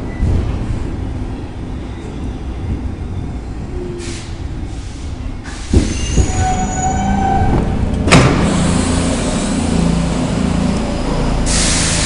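Stockholm metro C6 train running with a steady low rumble. About six seconds in come two sharp knocks and a brief squeal, then a loud clack about eight seconds in, and a hiss begins near the end.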